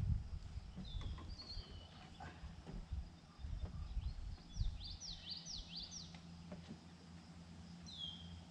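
Birds calling outdoors: short, high, downward-sliding chirps, with a quick run of about half a dozen around the middle. A steady low hum and a few dull low thumps sit underneath.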